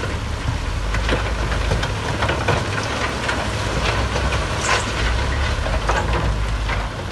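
Heavy construction machinery running: a steady low diesel engine rumble with irregular clanks and rattles over it.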